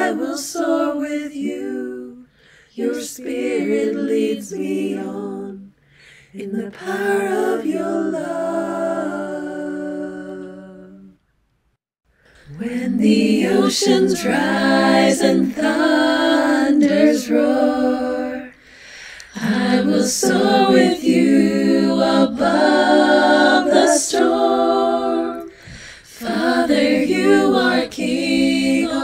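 Worship songs sung without instrumental accompaniment. The singing stops for about a second near the middle, then a new song begins.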